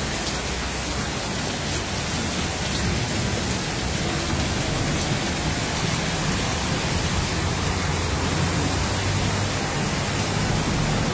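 Heavy rain falling steadily on a flooded street, a constant hiss. Through the middle of it a pickup truck's engine and tyres pass, splashing through the floodwater.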